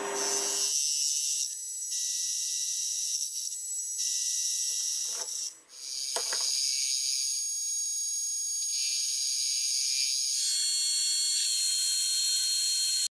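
Small benchtop metal lathe running, heard as a steady high hiss with faint thin whining tones, changing abruptly several times. A few sharp metallic clicks come about halfway through.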